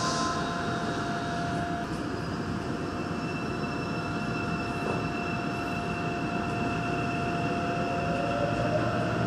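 Daegu Metro Line 2 subway train pulling out of an underground station and picking up speed into the tunnel, heard from inside the car: a steady running rumble with electric motor whine in several steady tones, and a faint rising whine near the end as the train speeds up.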